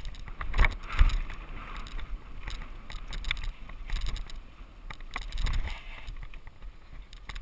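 Mountain bike descending a packed-dirt singletrack, heard through a GoPro Hero HD riding along: wind rumbling on the microphone, tyres on dirt and the bike and camera rattling over the bumps. Two hard knocks come about half a second and a second in, and there is a rougher stretch about five seconds in.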